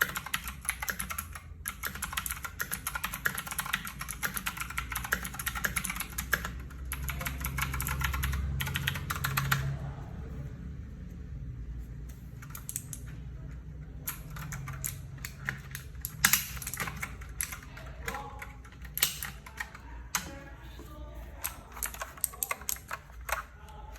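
Fuhlen D87s RGB mechanical keyboard with Huano Blue clicky switches being typed on. There is fast, continuous key clicking for about the first ten seconds, then sparser, separate keystrokes.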